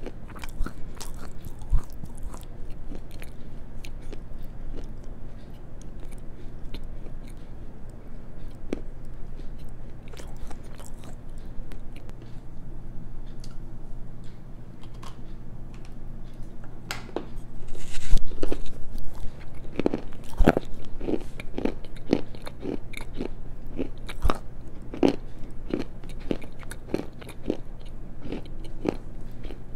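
Black slate being bitten and chewed right at a clip-on microphone: crisp crunching and grinding, with a loud bite a little past halfway, then steady chewing at about two crunches a second.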